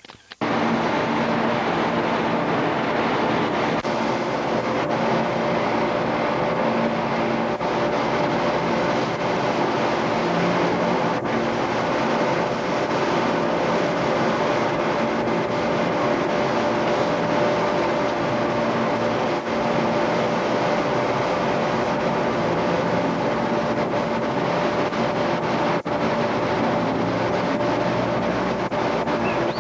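A steady, unchanging mechanical drone with hiss and a few held hum tones, which drops out for a moment at the very start.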